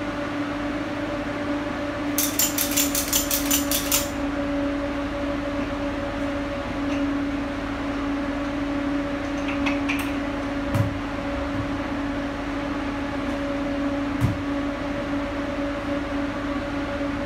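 Ratchet strap being cranked tight: a quick, even run of clicks, about five a second, lasting two seconds, over a steady mechanical hum. A few single knocks follow later.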